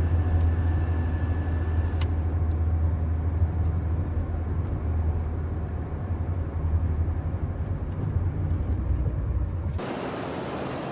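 Steady low drone of a road vehicle running, with a single click about two seconds in; it cuts off suddenly about ten seconds in.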